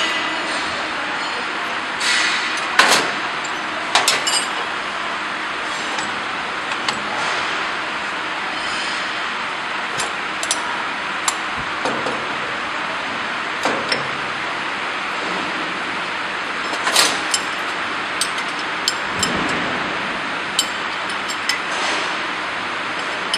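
Steady running noise from a common rail injector and pump test bench, with scattered metallic clinks and knocks, the loudest about three seconds in and again near seventeen seconds.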